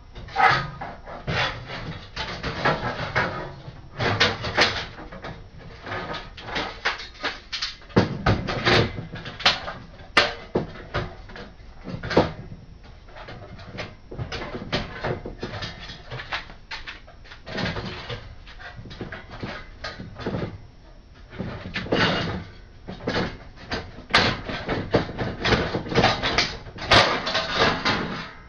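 Sheet-metal PC case being worked apart by hand after its rivets have been drilled out: irregular metal clanks, knocks and scrapes, with short quieter gaps.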